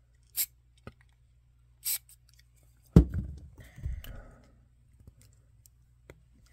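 Two short hisses of silicone lubricant from an aerosol spray can, then a sharp knock, the loudest sound, followed by light clicking and rustling as small plastic toy parts are handled.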